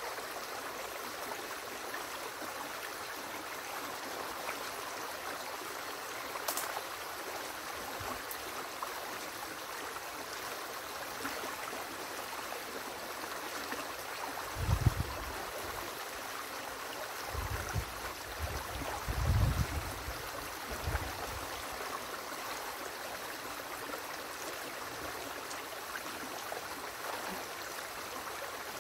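Small river water rushing steadily over the sticks and mud of a partly removed beaver dam. A few low thuds stand out about halfway through.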